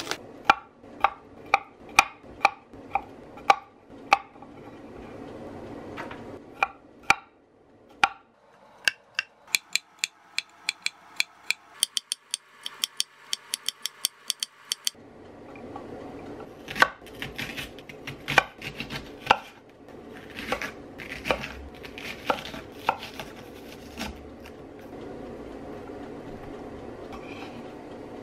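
Kitchen knife chopping garlic cloves and onion on a wooden cutting board: sharp knocks of the blade striking the board, spaced at first, then a fast even run of mincing strokes about halfway through, then irregular chops that die away near the end.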